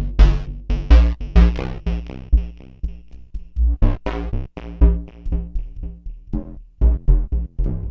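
DIY analog synthesizer playing a run of short, plucky bass notes at about three a second, changing pitch from note to note. Each note starts bright and quickly dulls.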